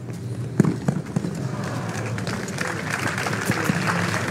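A tennis ball struck hard by a racket with a sharp crack about half a second in, followed by a few lighter ball hits and footfalls on the hard court. From about a second and a half in, applause from the crowd builds up.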